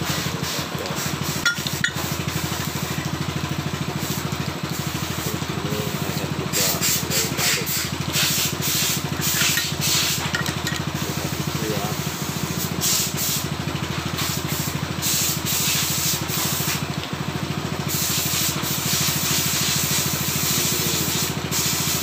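Metal rubbing and scraping in repeated short bursts as a motorcycle rear brake caliper is worked by hand with pliers, over a steady low machine hum.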